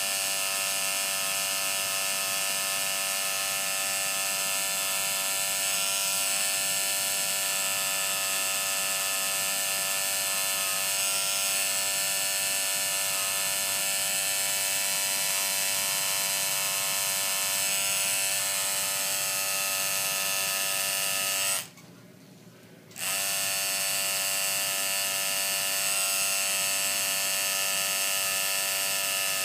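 Tattoo machine buzzing steadily as the needle works ink into the skin of a wrist. It stops for about a second roughly two-thirds of the way through, then starts again.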